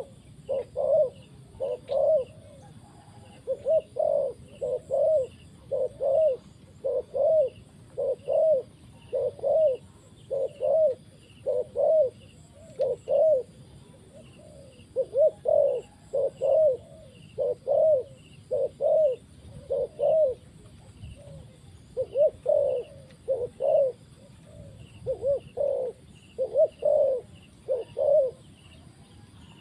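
Spotted dove cooing: a long run of low coos, each bending up and down in pitch, coming a little over once a second and broken by a few short pauses. These are the calls of a decoy dove luring wild doves.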